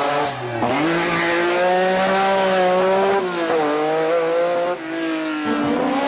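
Rally car engine revving hard under acceleration. The pitch climbs and drops sharply at each gear change, about a second in, around three seconds and near five seconds.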